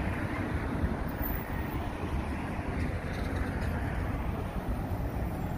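Steady drone of road traffic, with a low, uneven rumble of wind on the microphone.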